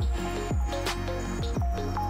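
Electronic background music with a steady beat: deep kick drums falling in pitch about twice a second, sharp percussion hits and sustained synth notes.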